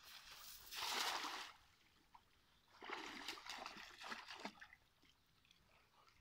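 A cast net swung out over a muddy pond lands on the water with a splash about a second in. About three seconds in comes a second, choppier stretch of splashing that lasts under two seconds, as the wading fisherman works the net by hand in the water.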